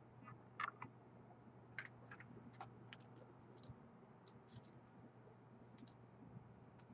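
Faint, irregular clicks and light scrapes of trading cards being handled and shuffled, over a low steady hum.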